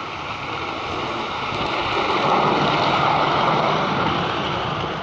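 Garden-railway model train of Percy hauling tank wagons running past on the track, a steady rolling rumble that grows louder to a peak in the middle and then fades.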